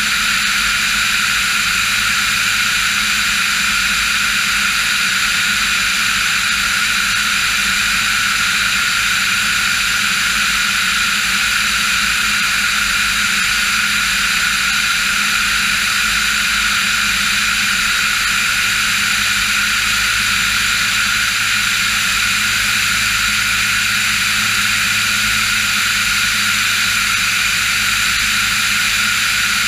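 Diamond DA40 NG light aircraft's turbo-diesel engine and propeller running steadily in level flight, an unchanging drone with no rise or fall in pitch.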